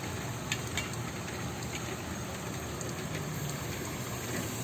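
Steady rain falling, an even hiss with a few faint ticks of drops scattered through it.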